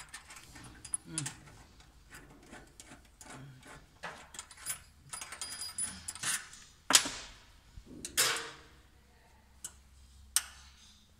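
Hand tools clicking and scraping on the bolts and cast housing of a pillow-block bearing mount as they are fitted and tightened, with scattered small metallic clinks. Two sharper metal clinks ring briefly about seven and eight seconds in.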